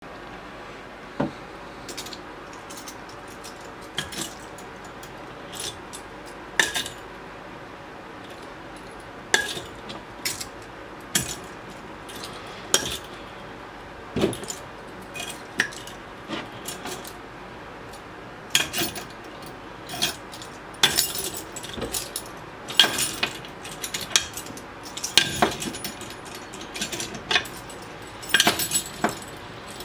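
Bunches of keys on metal rings being hung on and pulled off a magnetic wooden key holder: repeated metallic clicks as the rings meet the magnets, and the keys jangle against each other. The clicks come more often in the second half.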